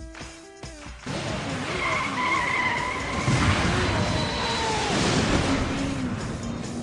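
Sport motorcycle engine revving up and down as it accelerates hard, starting about a second in, with a high tyre squeal.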